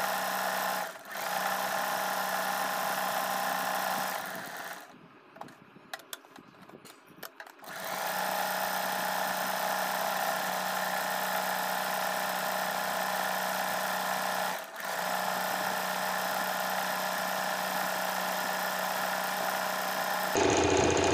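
Usha Stitch Magic electric sewing machine running steadily as it stitches a dense decorative embroidery pattern. It stops for about three seconds around five seconds in, with a few faint clicks, and pauses briefly twice more. Near the end it becomes louder.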